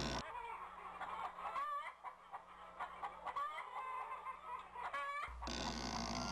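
Chickens clucking, a string of short calls with a faint steady hum underneath.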